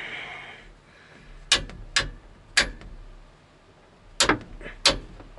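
Steel open-end wrench clinking against a JIC hydraulic fitting as it is taken off and put back on for each short turn, about five sharp metallic clicks. The fitting is being tightened down onto a Flaretite seal to stop a leak at the hydrostatic pump line.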